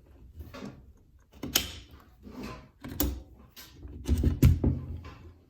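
Metal clicks and clunks of an AR-15 rifle being taken apart by hand, the upper receiver coming off the lower: a handful of separate knocks, the loudest cluster about four seconds in.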